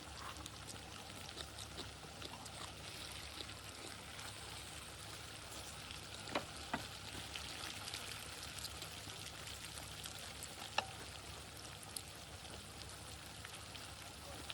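Food sizzling on a pan at the table, a steady hiss with a few light clicks.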